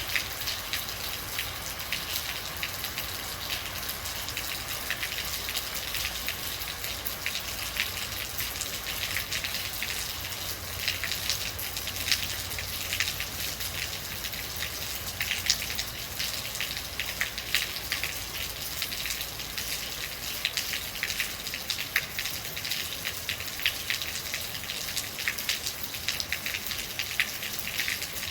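Real rain falling steadily, a continuous hiss with many close, sharp drops striking a surface.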